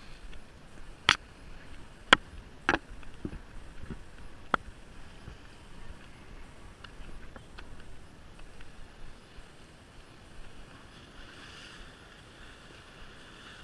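A handful of sharp knocks in the first five seconds, the loudest about one and two seconds in, over a low steady background hiss; near the end, small waves wash softly against the jetty rocks.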